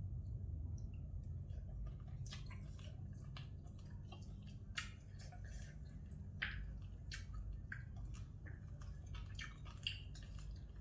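Person chewing and eating a wet glass-noodle salad close to the microphone: irregular wet mouth clicks and smacks, over a steady low hum.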